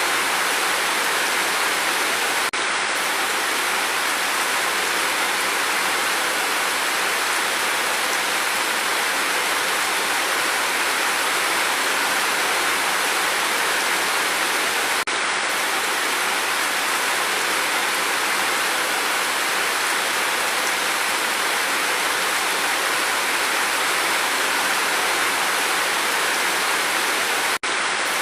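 Steady rain falling with no thunder, an even, unbroken hiss, with a split-second gap in the sound near the end.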